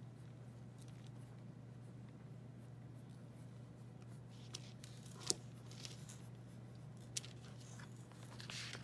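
Faint pencil strokes scratching on drawing paper as eyes are sketched in, with a few short scratches and a couple of sharp ticks from about four seconds in, over a steady low hum.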